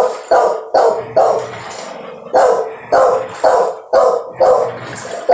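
A dog barking repeatedly: about nine short, sharp barks at roughly two a second, with a brief pause about a second and a half in.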